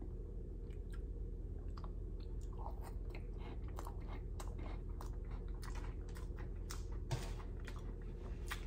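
Close-miked chewing of a mouthful of banana pudding with vanilla wafers, a scatter of many small, sharp mouth clicks.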